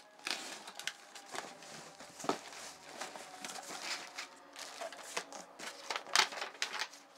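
Cardboard shipping box being opened by hand: flaps scraping and rustling, a paper sheet and plastic air-pillow packing crinkling. A few louder sharp rustles stand out, the loudest about six seconds in.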